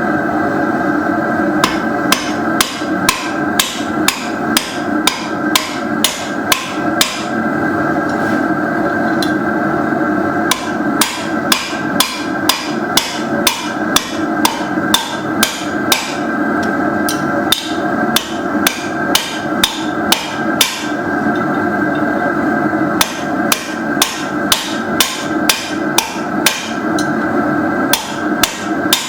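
Hand hammer striking steel on an anvil while forging a belt buckle, about two blows a second in three runs with short pauses between them. A steady drone from the running forge lies underneath.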